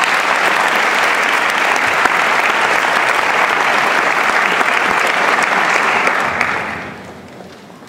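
Audience applauding steadily after a poem reading, dying away about six to seven seconds in.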